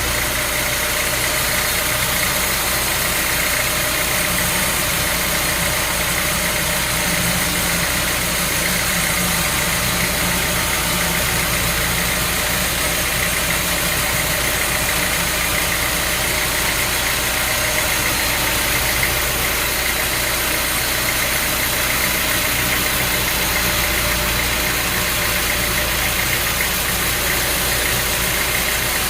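Sawmill machinery running steadily, an engine or motor with an even, unchanging drone and a dense mechanical noise.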